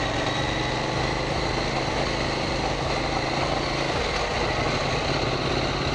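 KTM 790 Duke's parallel-twin engine running at a steady, even pitch, with a constant rush of noise around it.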